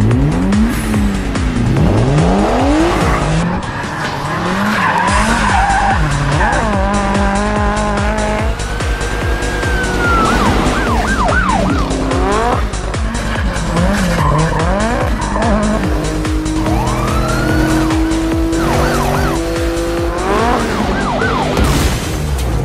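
Music with a steady beat mixed with car-chase sound: engines revving up and down again and again, and tyres squealing.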